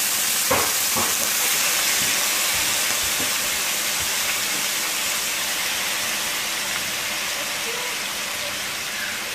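Soy-marinated beef slices sizzling as they fry in hot vegetable oil in a skillet: a steady hiss that eases slightly near the end. Two light clicks of tongs about half a second and a second in.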